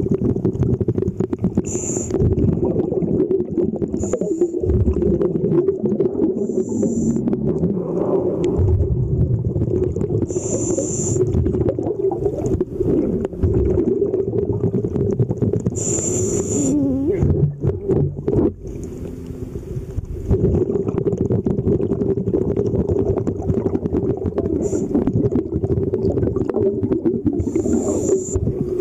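Underwater sound of a scuba diver breathing through a regulator: a steady low rumble and crackle of bubbles and water against the camera housing, with a short hiss at each inhalation every few seconds.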